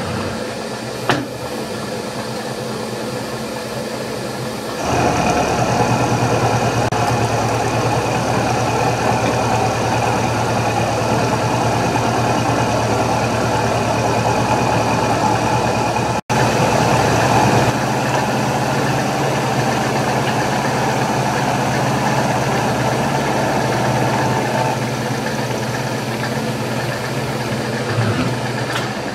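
Milling machine running with an end mill taking a roughing cut about 2 mm deep into the side of a metal plate, a steady machining sound over the motor's hum. It gets louder about five seconds in as the cutter is fed into the work.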